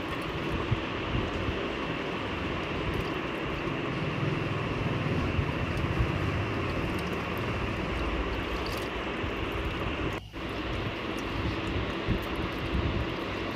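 A steady, even background noise with a faint hum in it, while hands swish small anchovies around in a clay pot of water. The noise drops out for a moment about ten seconds in.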